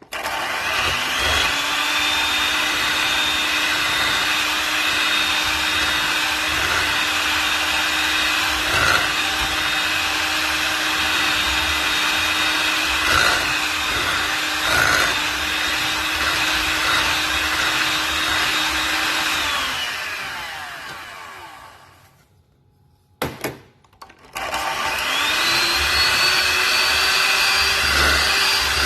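Electric mixer beating egg whites into meringue as sugar is added a little at a time. The motor spins up with a rising whine, runs steadily, then winds down and stops about twenty seconds in. After a couple of clicks it starts again and spins back up near the end.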